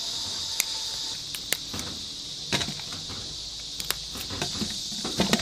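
A steady high-pitched insect chorus, with a handful of small sharp clicks and snaps as hands break apart young ginger rhizomes and rub the soil off them.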